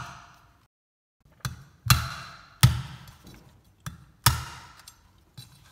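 A large kitchen knife chops into the husk of a trimmed young coconut, making about five sharp knocks. The chops start after a brief silence, about a second and a half in.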